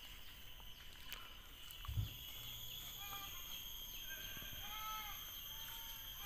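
Outdoor rural ambience with a steady high-pitched drone throughout. A dull thump comes about two seconds in, and a few short rising-and-falling animal calls follow in the second half.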